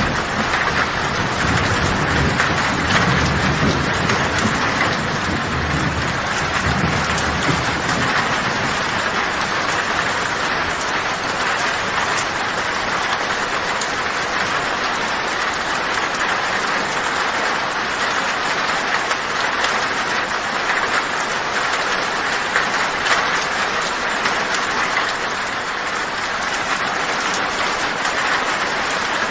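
Heavy rain pattering steadily on a tin roof, a dense even hiss. A low thunder rumble underneath fades out about seven seconds in.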